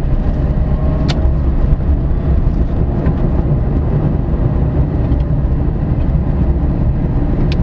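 Steady low road and tyre rumble inside the cabin of a moving BAW Pony S, a small battery-electric city car, with a sharp click about a second in and another near the end.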